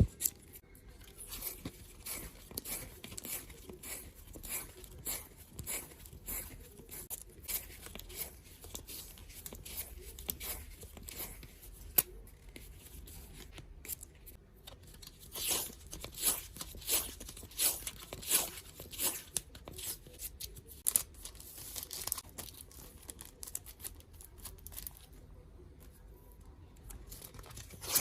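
Washi tape being pulled off its roll and torn in repeated short rips, with paper crinkling. The rips come thickest and loudest about halfway through, with one sharp snap just before.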